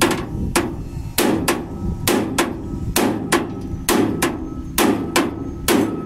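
A hammer striking the steel cutter bar of a combine harvester's header in quick pairs of sharp blows, a pair roughly every second. This is the work of fitting replacement finger guards on the cutter bar.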